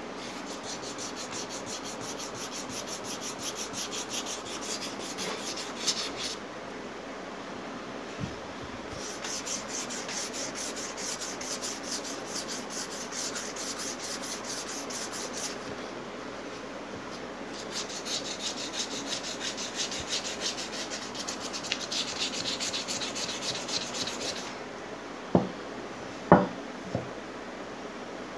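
Sandpaper rubbed by hand over a painted part in rapid back-and-forth strokes, in three long spells with short pauses between, sanding the surface down before spray painting. A few sharp knocks come near the end.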